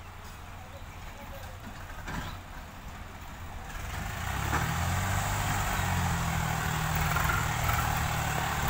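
Diesel tractor engines running, faint at first and getting much louder about four seconds in, with a steady low engine note under a rough clatter.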